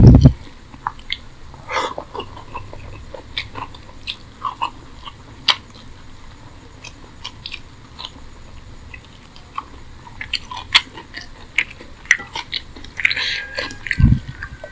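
Close-up eating sounds of rice and curry being chewed, with scattered small wet clicks and smacks from the mouth. There is a dull thump right at the start and another near the end.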